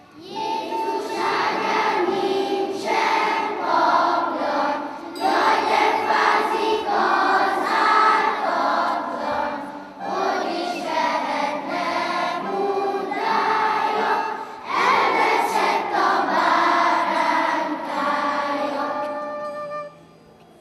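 Children's choir singing a song in several phrases with short breaks between them, the singing stopping shortly before the end.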